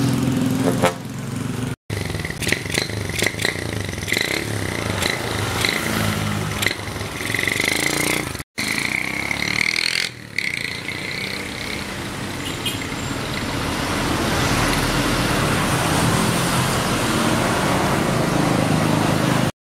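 Old step-through motorcycle engine running, now on a freshly fitted battery, followed by street traffic noise with passing vehicles. The sound drops out abruptly twice.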